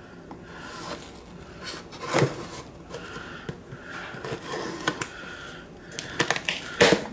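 Small knife blade scraping and slitting along packing tape and a paper label on a cardboard box, with a few sharp clicks.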